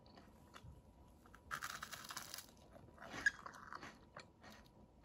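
Faint crunching and chewing of crisp toasted baguette bruschetta, with two louder spells of crunching, about one and a half and three seconds in.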